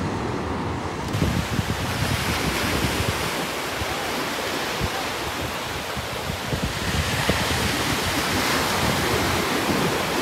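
Ocean surf breaking and washing up on a sandy beach, with wind buffeting the microphone. The wash grows a little louder about seven seconds in.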